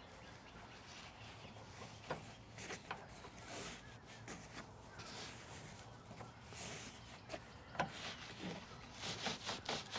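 Scattered clicks and short scrapes of a plastic door-trim clip being worked and pried at by hand, with a sharp click about eight seconds in and a quick run of clicks near the end.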